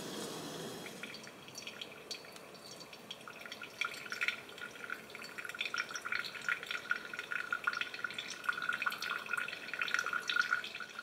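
Thin stream of hot water poured from a gooseneck drip kettle onto coffee grounds in a paper filter, trickling and splashing steadily. A steady hiss at the start gives way to the pouring about a second in.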